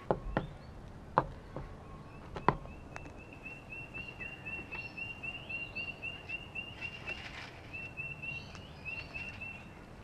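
A few sharp taps and knocks as a sulphur-crested cockatoo works at a plastic seed box on a wooden tabletop, the loudest near the start. From about three seconds in, a bird in the background repeats a short high chirp about four times a second, stopping just before the end.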